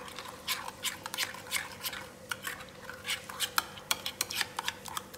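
A spoon stirring a thick yogurt-and-spice marinade in a bowl, clicking and scraping against the bowl in quick, irregular strokes.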